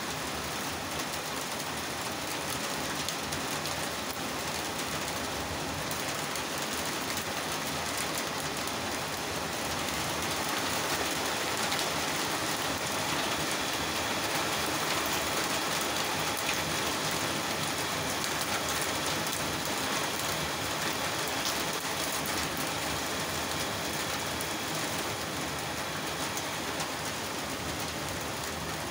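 Steady rain falling, a little heavier for a stretch from about ten seconds in.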